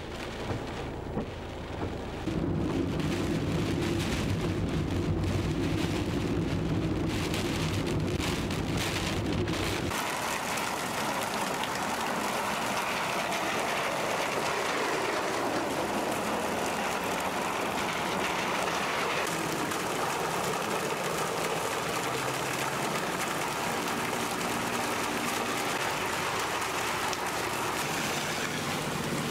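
Heavy hurricane rain falling as a steady hiss. For the first ten seconds a vehicle's engine drones underneath it; then the drone cuts off suddenly and only the rain on the street is left.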